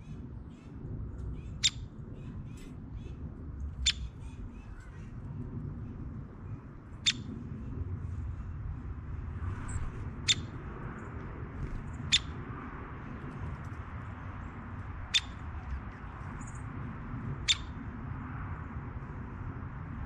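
A woodpecker at a wire-caged feeder making short, sharp, high single sounds, seven in all, spaced two to three seconds apart. A steady low rumble runs underneath.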